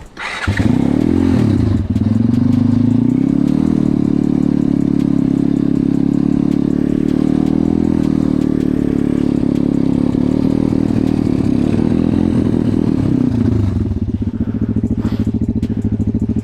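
Pit bike's 140cc single-cylinder engine revving hard: it comes in sharply about half a second in, climbs, and is held at steady high revs for around twelve seconds, then eases back and dies away near the end.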